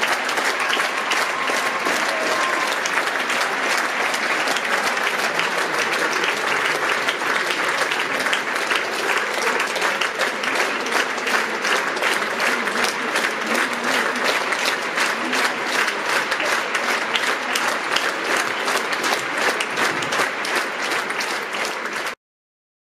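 Theatre audience applauding after a ballet, a dense, steady mass of clapping that cuts off suddenly near the end.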